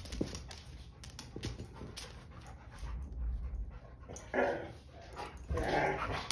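Black Labrador playing excitedly, with scattered light clicks of its claws, then two short excited whines in the second half. A sharp thump right at the end as it jumps up after a rope toy.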